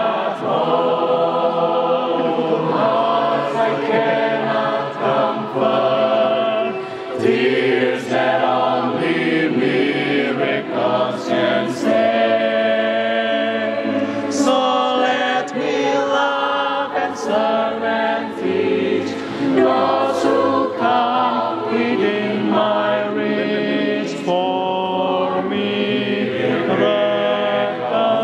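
A mixed choir of men and women singing in several parts without accompaniment, holding full chords that change every second or two.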